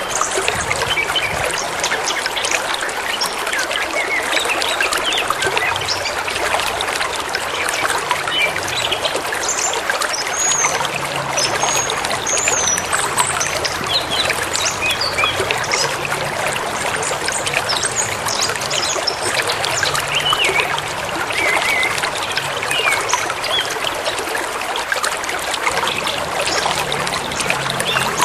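A forest stream babbling and trickling, with birds chirping and whistling here and there over it.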